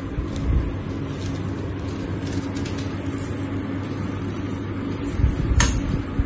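Light clicks and jingles of metal costume earrings being untangled and handled, over a steady low hum.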